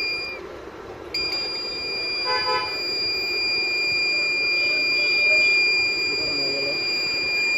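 Electronic alarm buzzer of a homemade PIR motion-sensor security alarm, switched on through a relay, sounding a steady high-pitched tone. It cuts out just after the start and comes back on about a second in.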